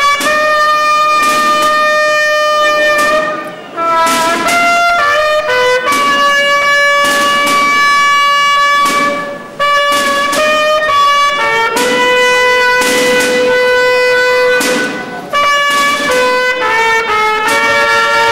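A band of cornetas, Spanish processional bugles, playing a slow melody in harmony. The notes are held in long phrases, with short breaks about four, nine and a half and fifteen seconds in.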